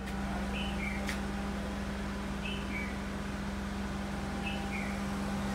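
Steady low machine hum on a night street, with a short two-note falling chirp that repeats about every two seconds and a single click about a second in.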